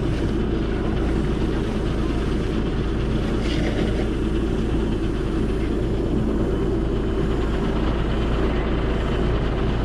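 Septic pumping truck's engine and vacuum pump running steadily, sucking out a septic tank.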